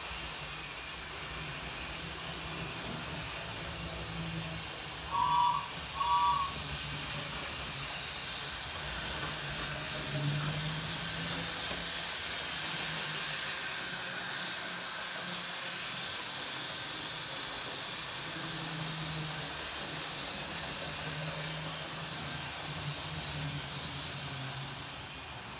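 Model steam locomotives (Bachmann 4-4-0s) running on the track: a steady whirr of small electric motors and gearing, with a low hum that swells and fades as they go round. Two short high beeps sound about five and six seconds in.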